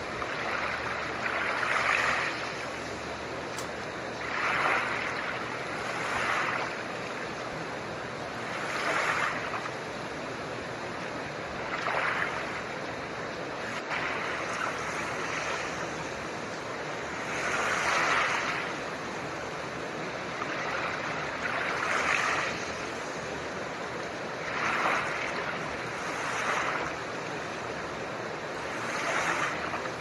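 Soft ocean waves washing in and drawing back, a gentle swell every two to four seconds, over a steady hiss of blue noise.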